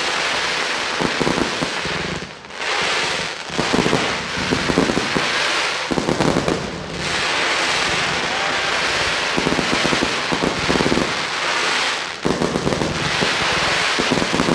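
Fireworks display: aerial shells bursting in rapid succession with dense crackling from gold glitter stars. There are a few brief lulls along the way.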